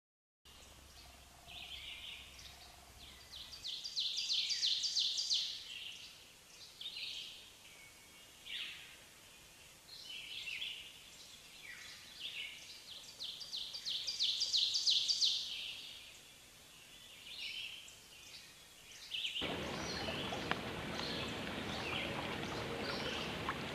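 Small songbirds singing high chirps and fast trills of short notes, with two louder trill bouts. Near the end a steady rushing noise of water lapping at a lakeshore sets in, with birds still chirping over it.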